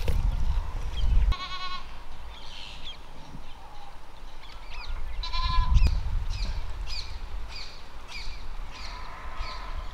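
A goat bleating twice, about a second and a half in and again about five seconds in, each a short wavering cry; short high chirps repeat through the second half.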